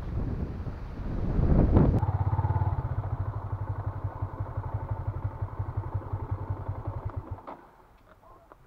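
A rush of wind noise, then a motorcycle engine running with a fast, even putter that fades and stops about seven seconds in.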